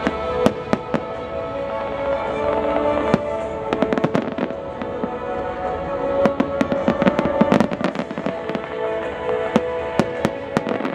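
Aerial fireworks shells bursting overhead in many sharp bangs and crackles, in irregular volleys that thicken about four seconds in and again in the second half, over sustained music.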